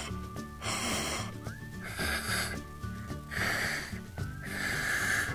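Repeated breathy puffs of air, about one a second, as if someone were blowing up a bubblegum bubble, over light background music.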